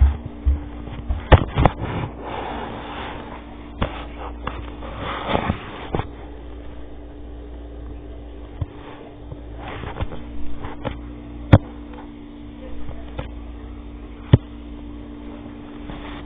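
Scattered sharp clicks and knocks, about half a dozen spread through, with a few brief rustling noises, over a steady low electrical hum.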